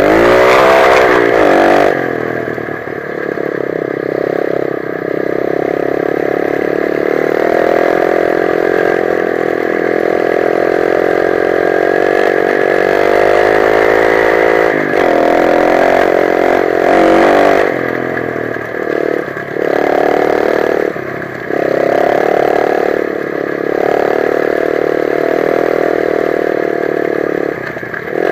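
A 125 cc dirt bike engine running while being ridden, its revs rising and falling with the throttle. There is a sharp dip and climb in pitch in the first couple of seconds, and the engine briefly goes quieter several times in the second half as the throttle is rolled off.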